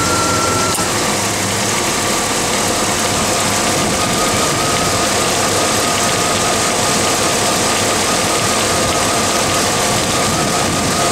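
Buick 455 V8 engine idling steadily, heard at the front of the engine by the belt-driven accessories, with a thin steady whine mixed into the running noise.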